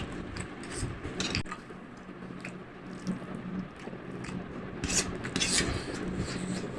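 Spicy instant noodles being slurped and chewed, with two louder noisy slurps, one about a second in and one about five seconds in.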